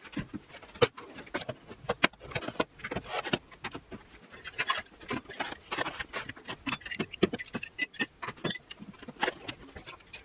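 Hand tools being handled and set down in tool chest drawers: an irregular run of clicks and clacks from screwdrivers and a plastic tool tray knocking against the drawer and each other, with a brief metallic jingle about eight seconds in.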